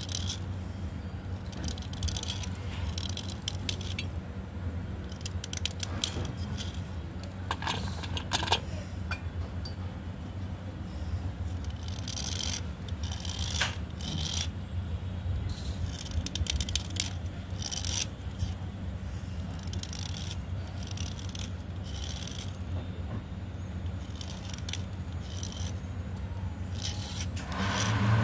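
Small blade scraping a wet slate pencil in quick, irregular short strokes, shaving off soft clay-like flakes, over a steady low hum.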